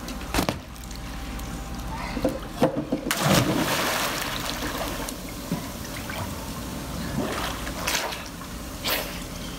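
Person plunging into a swimming pool: a big splash about three seconds in, then water sloshing and churning as the swimmer surfaces. A short knock sounds just after the start.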